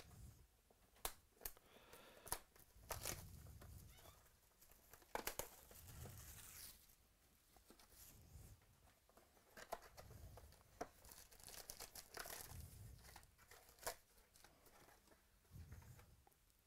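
Plastic shrink wrap being torn and crinkled off a sealed trading-card box, with faint scattered clicks and rustles as the cardboard box is opened and its foil card packs are handled.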